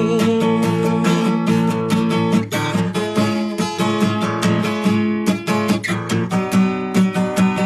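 Music: an acoustic guitar strumming chords in a song's instrumental passage.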